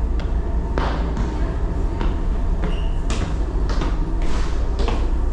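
Steady low rumble of a moving vehicle, with irregular knocks and thumps every second or so.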